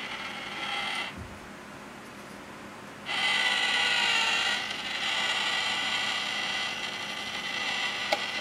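Cat-in-a-box coin bank's small electric motor and gears running as the toy cat pops up out of the lid: a short steady whir near the start, then a louder one lasting about five seconds.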